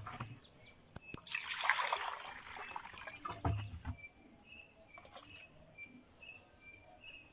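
Water splashing as vegetables are washed by hand, loudest for about a second early on, then a few light knocks and small splashes.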